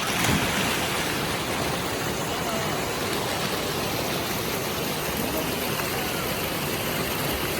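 Steady rush of flowing stream water, an even noise across all pitches with no rhythm.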